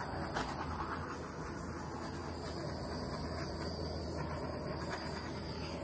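Handheld butane torch flame hissing steadily as it is played over wet acrylic paint, bringing up cells in the white.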